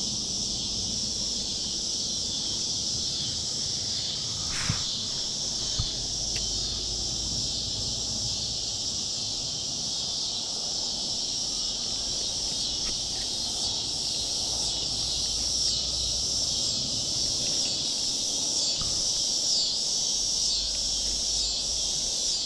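Steady, high-pitched chorus of insects, slightly pulsing, with two sharp clicks about five seconds in and a low rumble underneath.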